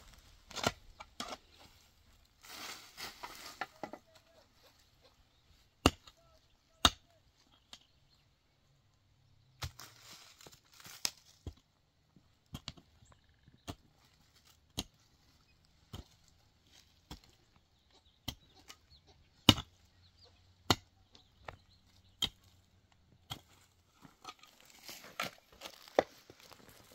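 Shovel digging in stony soil: the metal blade strikes the ground and stones in sharp knocks about once a second, with brief scraping of loose earth between strokes.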